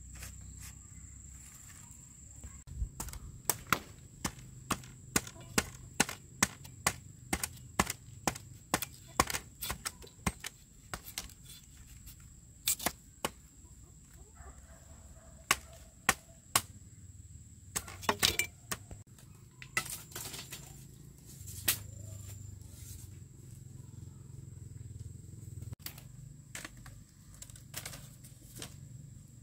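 A series of sharp knocks, about two a second for several seconds, then fewer and irregular, over a thin steady high-pitched tone.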